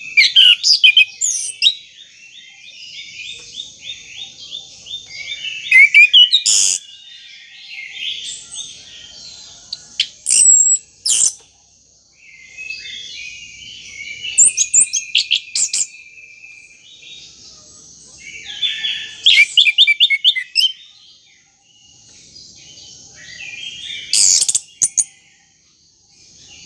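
Orange-headed thrush singing in rapid, varied phrases, with loud outbursts every few seconds over a steady high hiss. It is a lure song (pancingan) played to set a silent thrush singing.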